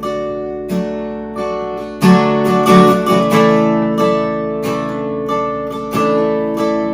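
Acoustic guitar strumming ringing chords as the instrumental introduction to a worship song, with a harder strum about two seconds in.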